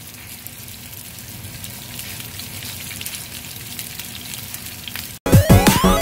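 Black sea bream pieces coated in frying mix sizzling steadily in hot oil in a frying pan, with faint crackling, slowly growing a little louder. Background music cuts in near the end.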